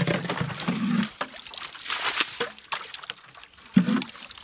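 Plastic bucket plunged into water in a freshly cut hole in thick ice, the water sloshing and splashing as it is scooped out, coming in several noisy surges.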